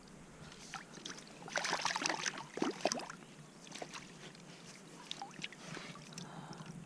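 Small, irregular water splashes and sloshes as a hand handles a trout in a landing net in shallow water, with a busier burst of splashing about two seconds in.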